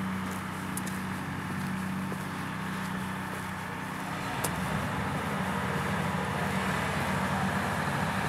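A large engine running steadily, its note changing to a rougher, faster pulsing about four seconds in, with a single sharp click just after.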